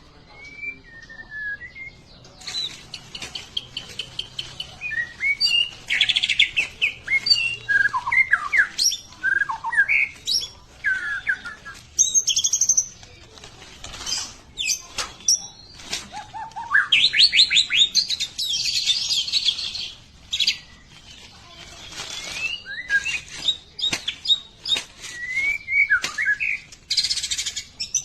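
A songbird singing a varied run of whistled notes, gliding phrases and rapid trills, with brief pauses and a few sharp clicks between phrases.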